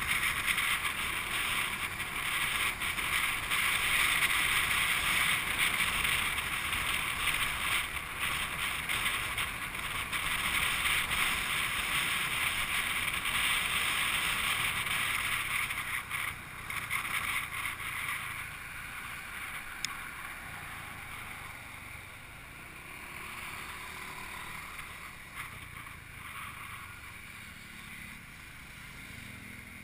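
Wind rushing over the microphone, with road noise, on a moving motorcycle taxi. The rush is a steady hiss that dies down about two-thirds of the way through as the bike slows in traffic.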